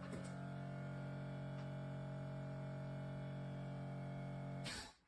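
Newly replaced Tesla Model X air suspension compressor running with a steady electric hum as it pumps the suspension up to its high position, then cutting off suddenly near the end.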